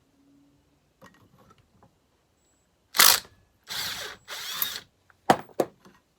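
Tool work removing the flywheel of a Homelite XL-12 chainsaw: a sharp knock, two half-second mechanical bursts, then two sharp clicks.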